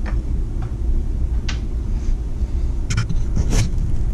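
Light clicks and clatter of small metal trimmer clutch parts (drum, clutch and washer) being set down on a wooden workbench, a few times, over a steady low rumble of background noise.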